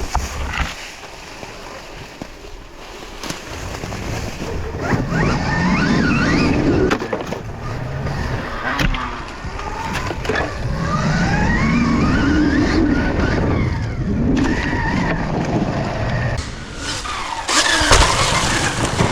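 Off-road vehicle engine revving up and down in several long swells as it is ridden.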